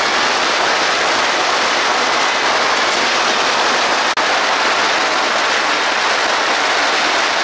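A long string of firecrackers going off in a dense, continuous crackle.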